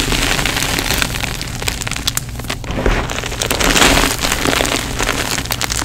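Crumbled gym chalk being worked in cupped hands: a dense, gritty crunching and crackling of chalk grains and lumps, full of small clicks, swelling and easing as the hands squeeze.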